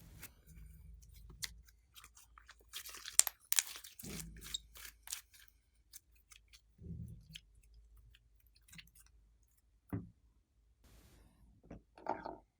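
Glossy slime being kneaded and stretched by hand, with sticky crackling and popping, thickest a few seconds in, and soft wet squelches now and then.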